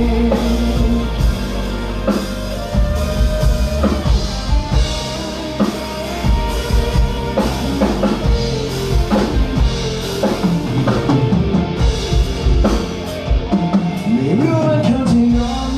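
Live band playing an instrumental break in a rock-style song: drum kit and guitar, with melodic lines sliding up and down in pitch.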